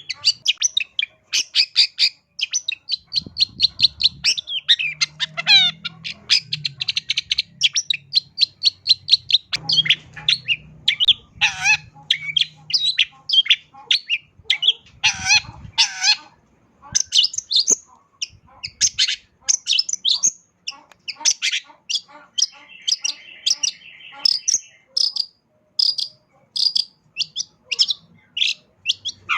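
Long-tailed shrike (cendet) singing without pause: a fast run of varied chirps, rattling trills and whistles packed with mimicked phrases of other birds, with a short buzzy passage a little past the middle.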